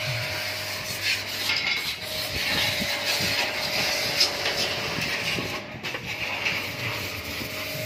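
Workshop noise: a steady machine hum that breaks off now and then, under scraping and light clattering.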